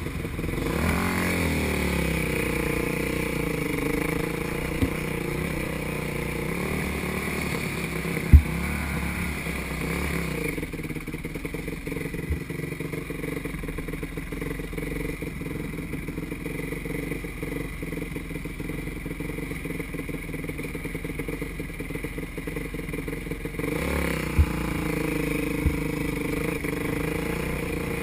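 Dirt bike engine running while riding along a dirt trail, its pitch swelling as it revs near the start and again near the end. A few sharp knocks cut in, the loudest about eight seconds in.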